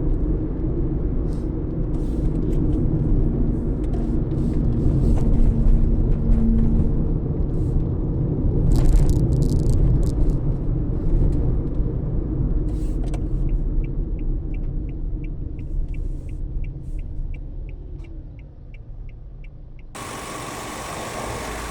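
Toyota Etios running on the road, heard from inside the cabin as a steady low rumble of engine and tyre noise. In the last part a light regular ticking comes in, about three ticks a second. About 20 seconds in the sound cuts to a different, hissier background.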